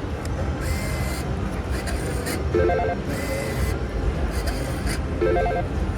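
Slot machine electronic sounds over steady casino floor din: a short electronic tone, a hiss and a little chime jingle, repeating about every two and a half seconds as the machine plays spin after spin.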